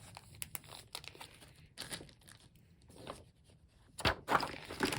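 Crinkling and rustling of plastic packaging and cardboard game pieces being handled, with scattered light clicks and a louder rustle near the end.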